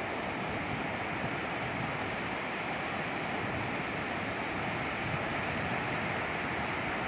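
Ocean surf breaking and washing over a sandy beach, a steady rush with no let-up.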